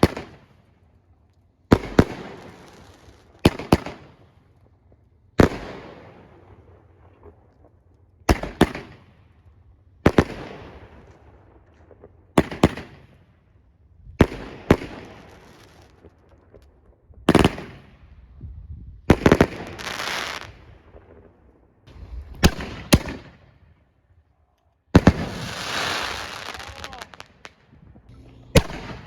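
Fireworks going off in a steady sequence: sharp bangs every one to three seconds, sometimes two close together, each followed by a fading crackle and echo. Near the end comes a longer, louder burst of crackling.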